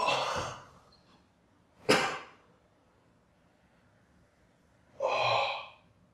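A man's short breathy sounds with dead silence between them: a rushing exhale at the start, a brief sharp sound about two seconds in, and a longer voiced breath, like a yawn or sigh, about five seconds in.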